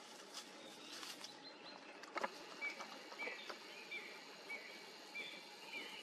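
Faint forest ambience with a bird giving a series of short, high chirps from about two and a half seconds on. A sharp snap, the loudest sound, comes about two seconds in.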